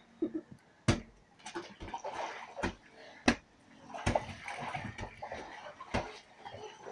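Water splashing and sloshing in an above-ground pool as children move through it, broken by several sharp slaps.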